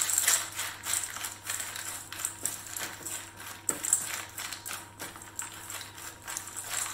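A spatula stirring roasted chickpeas in a stainless steel bowl: a quick run of rattling clicks and scrapes as the hard chickpeas tumble against the metal and each other, while dark chocolate is mixed through to melt over them.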